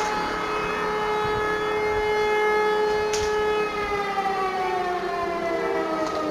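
Several civil-defence sirens, E57 mechanical sirens among them, sounding the fire-alarm signal: they hold a steady tone, then about three and a half seconds in the pitch slides down as they wind down. There is a brief click shortly before.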